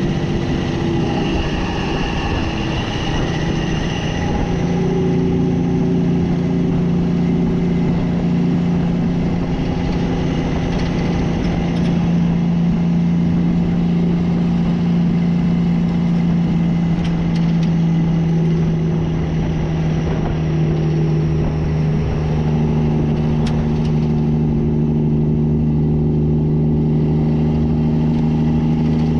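Mack semi truck's diesel engine and exhaust running as the truck drives slowly. The engine holds a steady note that changes pitch about four seconds in and again past twenty seconds in.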